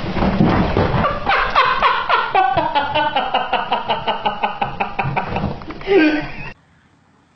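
A person laughing hard in a quick run of 'ha-ha' bursts, about five a second, then a short loud cry, before the sound cuts off suddenly.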